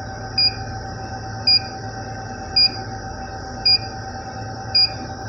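BGA rework station beeping: five short, high two-tone beeps about a second apart over a steady fan hum, the station's signal that its reflow heating profile is reaching its end.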